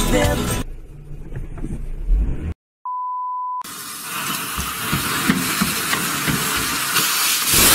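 Music ends, a quieter stretch follows, then a short steady beep. After that comes the hiss of a cluster of fireworks on a chair burning after being lit, getting louder toward the end.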